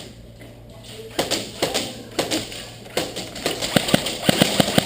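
Airsoft guns firing: sharp clicking shots, scattered at first, then a quick run of shots about seven a second, starting about three and a half seconds in.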